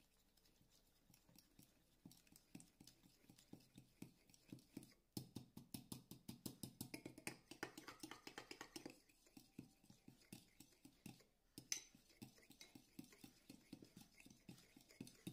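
Small metal spoon whisking thick tahini sauce in a glass bowl, scraping and tapping the glass in a faint, quick rhythm of about four or five strokes a second. The stirring stops briefly about two-thirds through, then a single sharper clink of spoon on glass.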